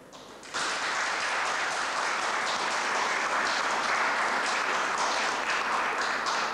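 Audience applauding: the clapping starts suddenly about half a second in and holds steady before tailing off at the end.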